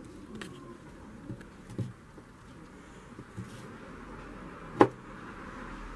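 Large kitchen knife cutting gingerbread on a silicone mat: a few light taps and clicks, then one sharp knock of the blade coming down about five seconds in.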